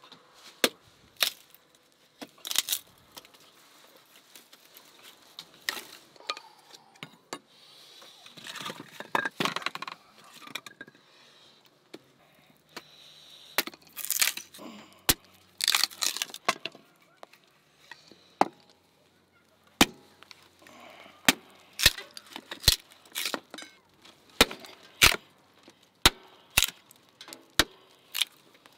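Small hatchet chopping into a block of wood: sharp knocks, scattered at first with stretches of scraping between, then a steady run of blows about one to two a second in the second half.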